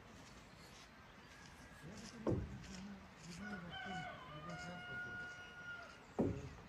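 A rooster crows once, one long held call about halfway through. Two sharp knocks, about two seconds in and near the end, are the loudest sounds.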